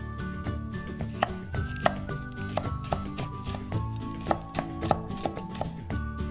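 Chef's knife slicing a green pepper into strips on a wooden cutting board: irregular knocks of the blade on the board, a few of them sharper, over soft background music.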